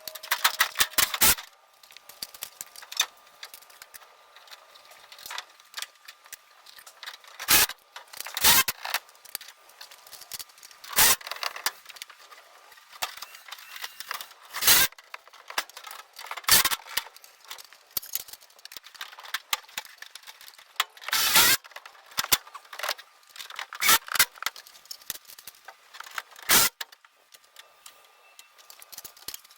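Power driver running in short bursts, about nine times a few seconds apart, driving the screws of gutter hangers in.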